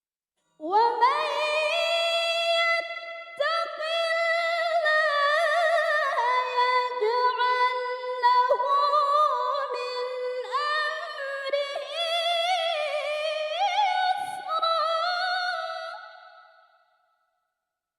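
A female Qur'an reciter (qoriah) chanting a long, ornamented melodic phrase of tilawah, unaccompanied, her voice winding up and down in pitch. There is a brief break about three seconds in, and the voice fades out near the end.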